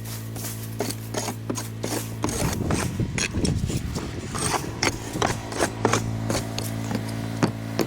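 Irregular scraping and clicking of hard roof tiles being handled and scraped, over a steady low hum.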